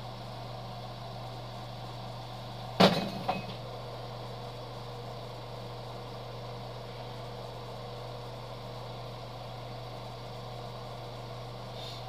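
Steady electric motor hum, with a sharp knock about three seconds in and a smaller one just after.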